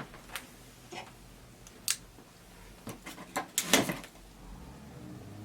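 Cardboard vacuum-cleaner box being handled and opened: a string of short knocks, taps and scrapes, loudest in a cluster about three and a half seconds in.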